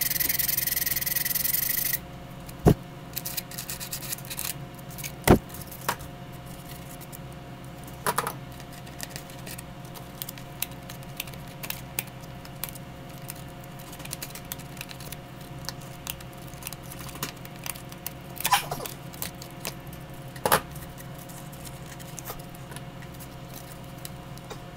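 Craft tools working paper and a papier-mâché model by hand: scattered clicks, taps and scrapes of scissors and metal and wooden tools against paper and foil, over a faint steady electrical hum. A loud steady hiss fills the first two seconds and cuts off suddenly.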